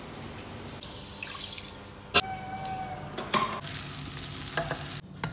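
Kitchen work: a sharp, briefly ringing clink of a dish or utensil about two seconds in, a few lighter knocks, then running water hissing that cuts off suddenly near the end.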